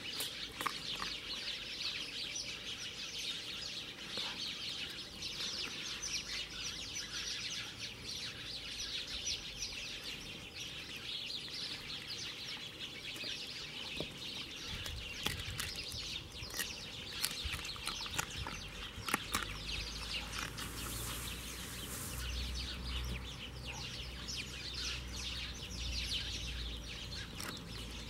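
A large dog chewing and crunching raw chicken pieces and bones, with sharp cracks now and then, over a steady chatter of birds calling in the background.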